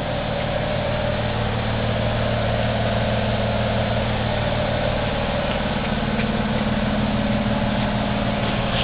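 Electric motor of a Vectrax 7" x 12" horizontal metal-cutting bandsaw running steadily with an even hum.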